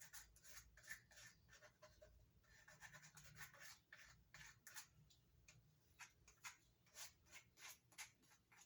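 Faint palette knife scraping across a wet acrylic-pour canvas in short, repeated strokes, lifting off excess paint; the strokes come quicker, about two a second, in the second half.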